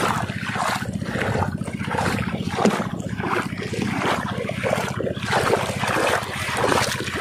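Footsteps wading through shallow, muddy water, sloshing and splashing at about two strides a second.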